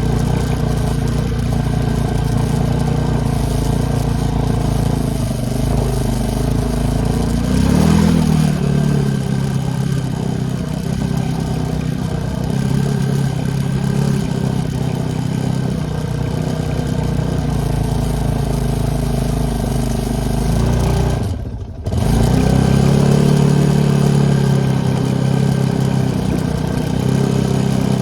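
ATV engine running under way. It revs up about a third of the way in, cuts out sharply for a moment near the three-quarter mark, then comes back louder.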